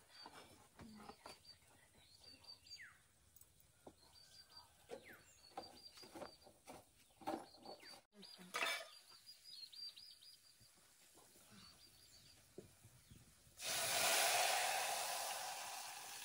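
Birds chirping over and over, with scattered light knocks and clinks of cooking. Near the end a sudden loud sizzle that slowly dies down: the tempering of spices hitting hot oil for the dal.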